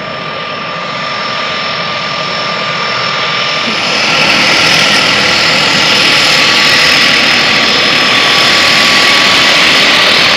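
Float plane's propeller engine running, growing louder over the first few seconds as the plane comes closer, then holding steady and loud.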